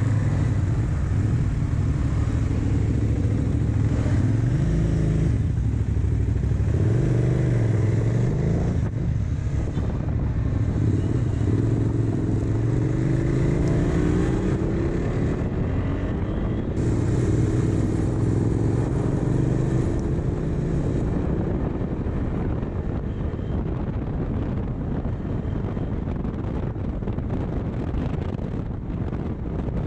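KTM 390 Adventure's single-cylinder engine heard from the rider's seat, its note rising several times as the bike accelerates up through the gears. In the later part the engine settles and wind rush dominates.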